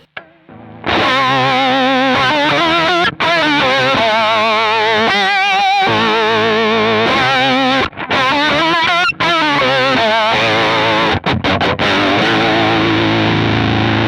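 Electric guitar played through a Kemper Profiler with fuzz, octave and vibrato effects: heavily distorted notes with a fast, even wobble in pitch, starting about a second in and broken by a few short pauses between phrases.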